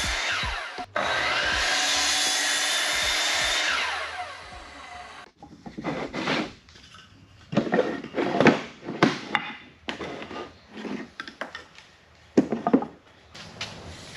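Miter saw running and cutting through wooden boards for about four seconds, with a short break under a second in, then winding down. After that come a series of wooden knocks and clunks as cut pieces of board are handled and set together.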